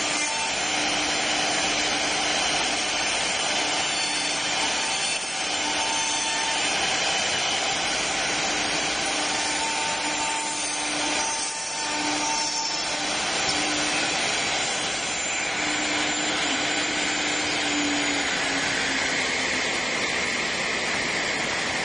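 CNC mortise and groove woodworking machine running: a steady whir of its motors, with a hum that comes and goes in stretches.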